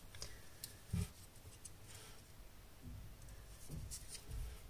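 Faint clicks and scratches of fingers and a thin metal pick working over the small plastic body of a partly assembled action camera, tucking its microphone and speaker wires into place. A soft knock about a second in is the loudest sound.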